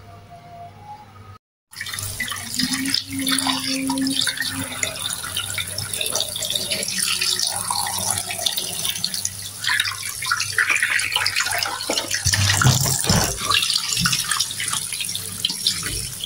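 Kitchen tap running onto whole fish and a plastic plate in a stainless steel sink, the water splashing and changing as hands rub and turn the fish to rinse them. The water starts about two seconds in, after a brief silence.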